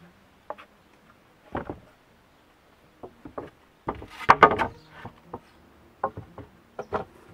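Wooden boards knocking and scraping against each other and against a log rafter and stones as they are laid and shifted into place. The loudest stretch is a quick cluster of knocks and scraping about four seconds in, with scattered single knocks before and after.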